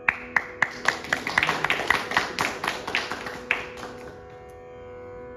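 Small audience applauding for about three and a half seconds: a few separate claps at first, then more hands joining, then it dies away. An electronic tambura drone holds steady underneath.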